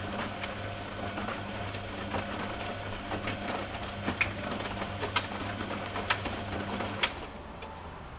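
Privileg 370 S front-loading washing machine running a wash, its motor humming steadily as the drum turns, with scattered sharp clicks and taps. The motor hum stops about seven seconds in, as the drum pauses between turns.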